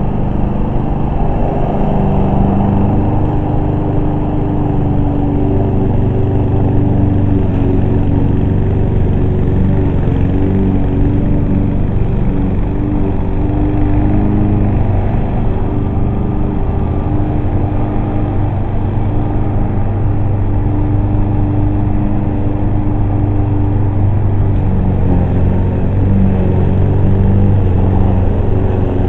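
Subaru 21-inch self-propelled walk-behind lawn mower's small engine running steadily while mowing, its pitch wavering slightly as it works through the grass.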